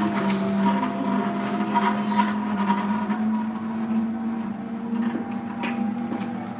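Electric vertical juicer's motor running steadily with a constant hum while carrot sticks are fed in, with scattered sharp cracks as the carrots are crushed.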